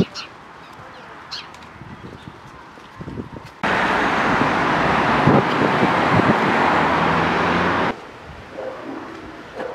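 Quiet outdoor background with a few faint chirps. About three and a half seconds in, a loud steady rush of street traffic noise cuts in, and it stops abruptly about four seconds later.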